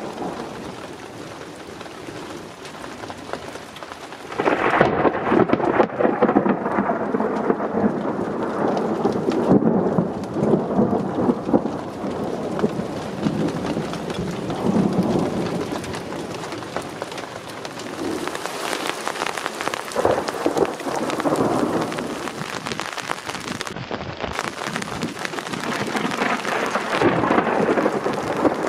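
Thunderstorm with rain falling and thunder rumbling. About four seconds in the sound jumps sharply louder as thunder breaks, and heavy rain patters densely after it, with further swells of rumble later on.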